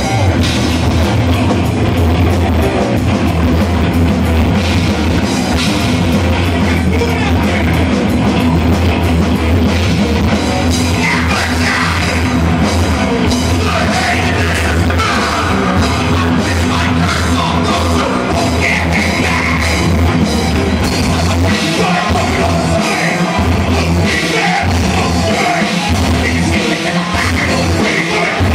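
Live rock band playing loudly: electric guitars, bass and drum kit, with a singer's voice over the band.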